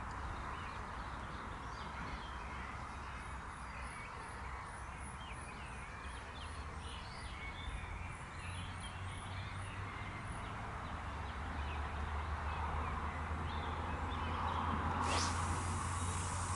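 Birds singing and calling over a steady low rumble of traffic from a nearby road. About fifteen seconds in, a brief rushing hiss lasts a couple of seconds and ends in a sharp click.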